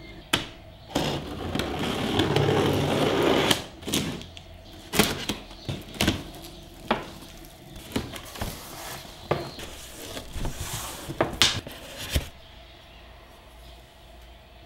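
A cardboard box being opened: a couple of seconds of loud scraping as its packing tape is slit with a small knife, then the cardboard flaps being folded back and handled, a string of knocks and rustles.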